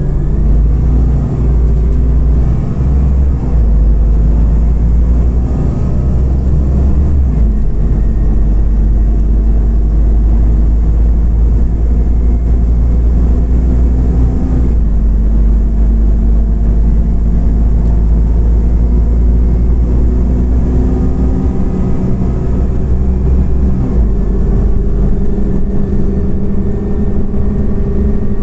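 Scania OmniCity CNG city bus heard from inside the cabin while driving: a steady low engine and road rumble, with the engine note rising and dropping several times as the bus speeds up and slows.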